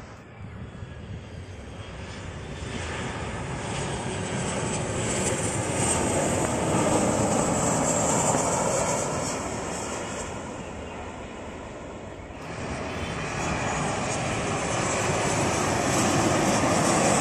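Jet airliners' engines on landing approach passing low and close. The noise swells to a loud peak with a high whine, cuts off abruptly about twelve seconds in, and a second airliner's engine noise then builds up again toward the end.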